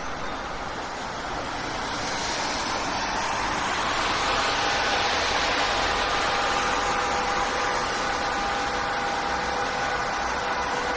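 City street traffic: a steady rush of passing vehicles that grows louder over the first few seconds, with a steady whine setting in about four seconds in.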